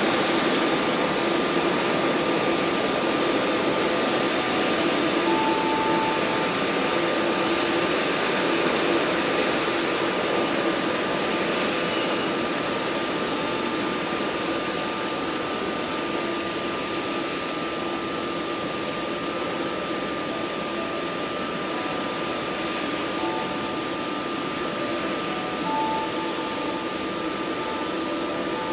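Airliner jet engines running steadily: a broad rush with a thin high whine, slowly getting a little quieter.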